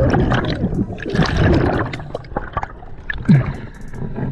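Scuba regulator exhaust bubbles gurgling underwater, irregular and fairly loud, with water sloshing near the end as the diver comes up at the surface.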